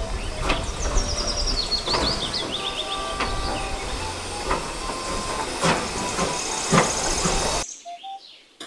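Steam locomotive standing with steam hissing steadily, broken by a few sharp clanks; the sound cuts off suddenly near the end.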